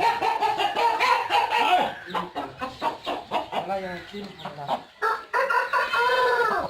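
Aseel rooster crowing, a long drawn-out crow at the start and another near the end, with short clucking calls between.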